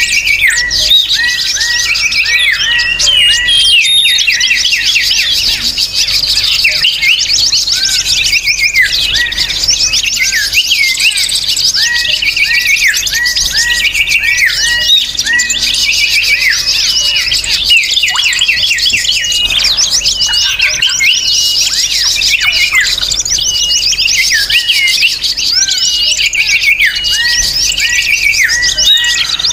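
A noisy crowd of small songbirds chirping and twittering in rapid, overlapping bursts without pause, played as a bird-lure recording to draw wild birds in.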